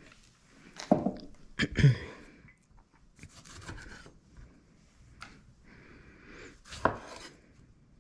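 Chef's knife slicing tomatoes on a bamboo cutting board, with a few sharp knocks on the wood: two loud ones about one and two seconds in and another near the end, with softer scraping between.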